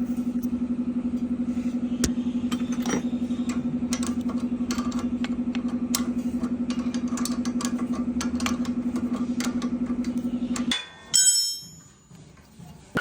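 Noise from a vehicle's rear wheel: a steady, fast-pulsing hum with light scattered clicks, which cuts off suddenly near the end, followed by a single clack.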